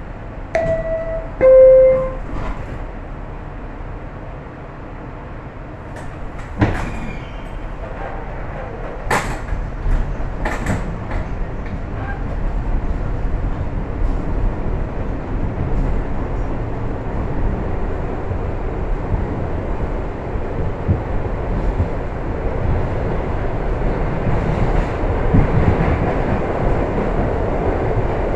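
R62A subway car's two-tone door chime, one tone then a lower, louder one, about a second in, followed a few seconds later by several sharp knocks. The train then pulls out, its running noise and rail rumble building steadily as it picks up speed.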